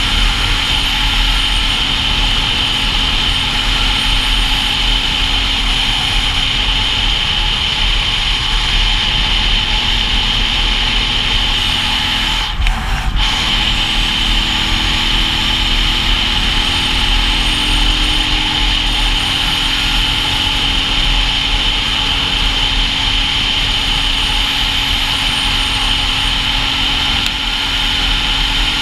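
Dual-sport motorcycle riding along at a steady speed, its single-cylinder engine running under a constant rush of wind on the microphone, with a brief dip in the sound a little before halfway.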